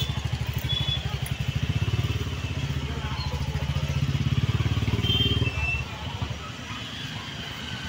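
Small auto-rickshaw and motorcycle engines idling in stalled traffic. One close engine puts away with a fast, steady beat until it drops away about five and a half seconds in, leaving a quieter traffic hum.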